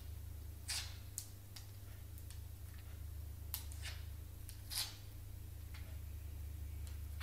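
Faint, irregular clicks and short scuffs of a dog's claws and paws on a hardwood floor as it walks slowly, over a steady low hum.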